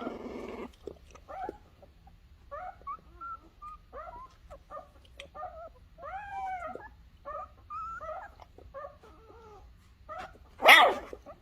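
Young puppy giving a run of short, high yips and whimpers, with a much louder call near the end.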